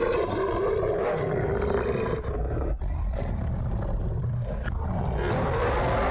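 Deep, continuous monster roar and growl, a werewolf roar sound effect, with a few sharp cracks in the middle.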